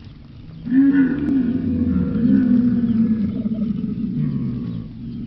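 Bactrian camel calling: one long, low, rough call that starts about a second in and lasts about four seconds.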